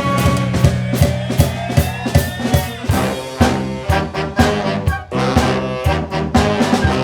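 Brass fanfare band playing an up-tempo tune: horns holding and moving through notes over a steady, regular drum beat.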